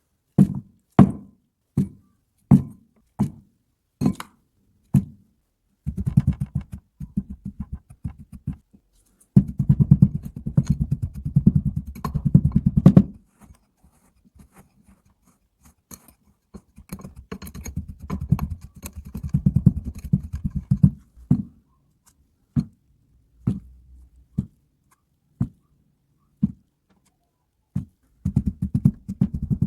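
Kinetic sand being handled: a series of soft, dull thuds about a second apart, then two long stretches of dense crackling squish, from about six seconds in and again from about seventeen seconds in, with more single thuds near the end.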